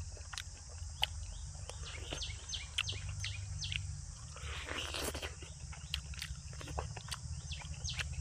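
Close-miked eating sounds: wet lip smacks and chewing clicks, several a second, with a longer noisy rush of chewing about halfway through.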